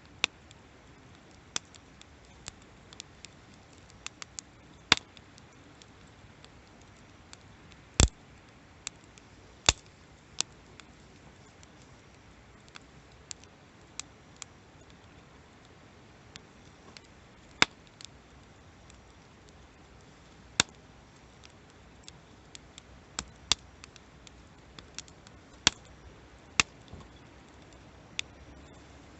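Wood campfire crackling: irregular sharp pops and snaps over a low steady hiss, with a handful of louder pops scattered among the small ones.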